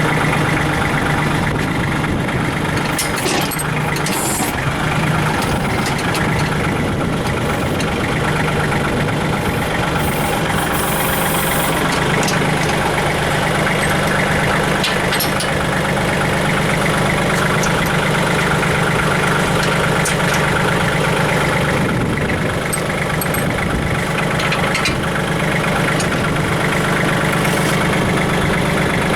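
Kubota L3800DT tractor's diesel engine idling steadily, with a few short knocks and a brief hiss while the backhoe is being hooked back up to it.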